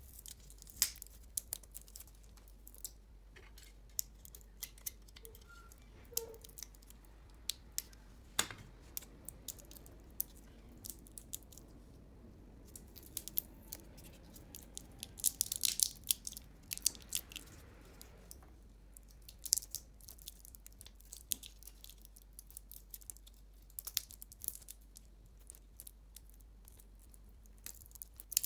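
Hands working on a small plastic Bluetooth speaker during repair: irregular sharp clicks, scratches and crinkles, with a single harder knock about eight seconds in and a denser run of clicks about halfway through.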